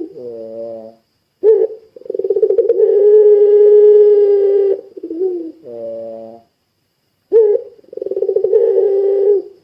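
Puter pelung dove cooing: two long drawn-out coos, each opened by a short rising note, with quieter, lower, shorter coos between them.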